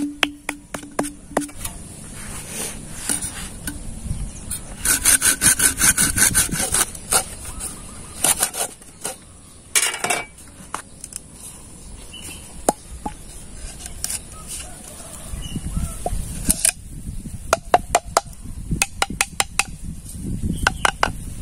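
A bamboo tube being cut by hand, in bursts of quick rasping strokes. There is a long run about five seconds in, short bursts around eight and ten seconds, and another run near the end.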